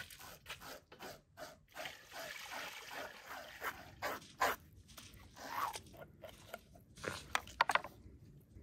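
A knife and hands working a whole raw fish on a wooden cutting board: irregular wet crunching, scraping and squelching as the fish is cleaned, with a few sharper snaps near the end.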